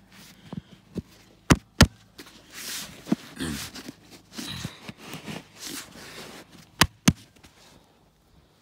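Loose, dry soil being scraped and pushed by hand around a buried plastic irrigation valve box, with two pairs of sharp knocks, one pair a second or two in and another near the end.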